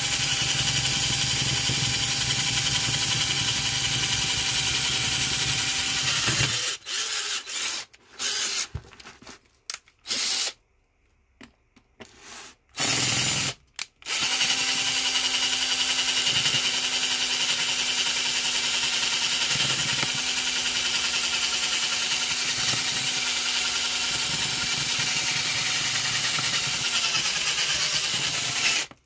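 Electric drill running under load as it bores into a stuck metal part: a steady run, then about a dozen short on-off bursts, then a long steady run again before it stops near the end.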